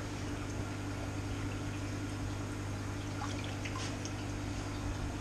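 Steady low electrical hum of aquarium equipment, with faint water trickling and splashing in an open, shallow planted aquarium tank and a few light ticks.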